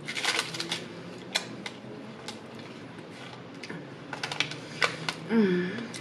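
Close-miked eating sounds: crisp clicks and smacks of chewing a fried apple pie and handling its crust, with a short hummed vocal sound a little after five seconds.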